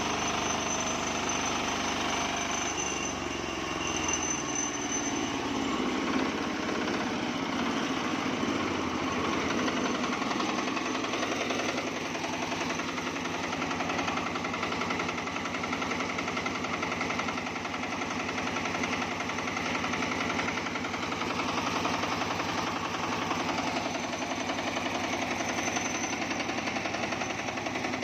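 Single-cylinder Matsumoto diesel engine running a homemade sawmill with a rapid steady knock; its pitch shifts during the first several seconds, then it holds steady.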